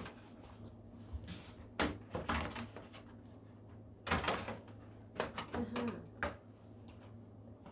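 Scattered knocks, clicks and clatters of a flat-screen TV's plastic back casing and parts being handled while it is taken apart, heard over a steady low hum.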